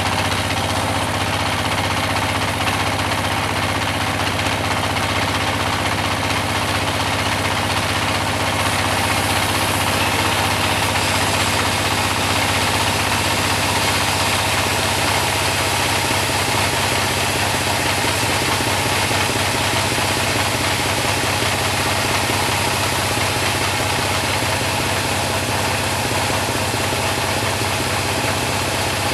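Type-26 sawmill band saw running steadily while sawing a large mahogany log, a constant machine hum under a dense hiss from the blade in the wood, getting a little brighter about a third of the way in.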